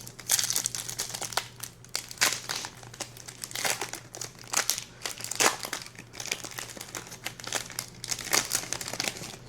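Plastic wrapper of a Topps Resurgence trading-card pack crinkling in the hands as it is opened, in irregular bursts of rustling. Under it runs a faint steady low hum.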